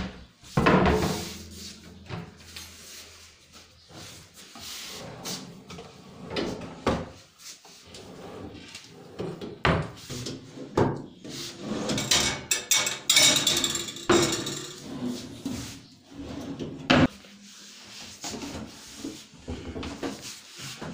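Deodar-wood kitchen cabinet drawers and doors being pulled open and pushed shut by hand: sliding runs broken by several sharp knocks as they close.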